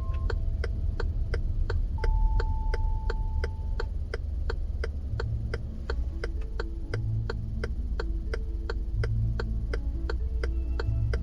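Steady, even ticking, about two ticks a second, over the low rumble of the car on the road and faint music from the car radio.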